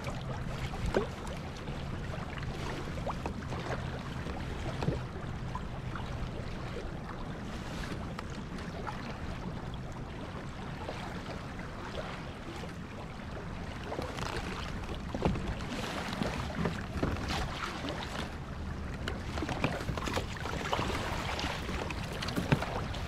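Steady wind and water noise around a small fishing boat, with a low steady hum and scattered light knocks and clicks.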